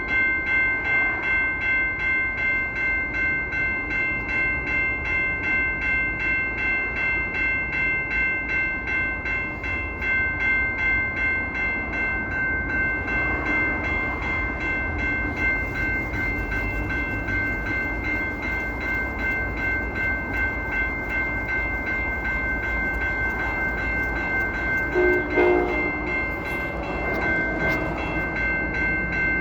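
Kansas City Southern locomotive air horn held in one long, steady multi-note chord, with a regular pulsing in its loudness. A brief lower-pitched sound cuts in near the end.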